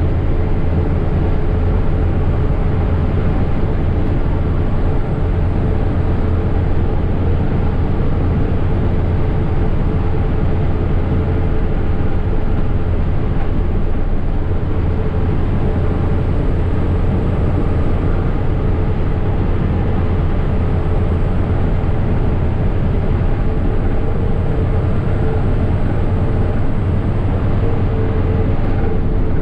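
Steady drone inside the cabin of a Mitsubishi-engined medium bus cruising at speed: deep engine hum mixed with tyre and road noise, unchanging throughout.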